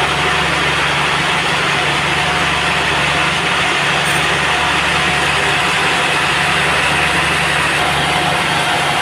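Band sawmill machinery running steadily: a constant engine drone with an even noise over it.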